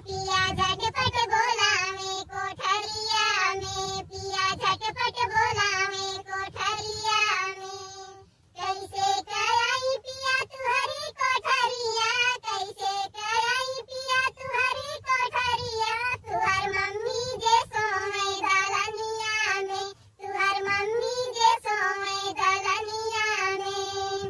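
A high, pitched-up cartoon voice sings a Bhojpuri folk song, with two brief breaks: one about eight seconds in and one about twenty seconds in.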